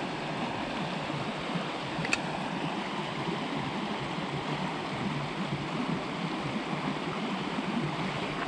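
Small creek's water running steadily over rocks, with one faint click about two seconds in.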